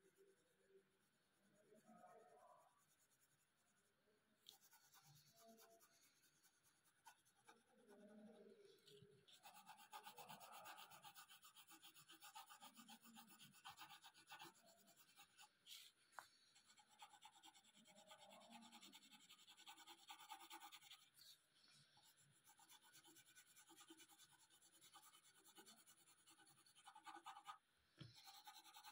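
Faint pencil shading on paper: rapid back-and-forth scratching strokes of the lead, which become dense and steady about four seconds in.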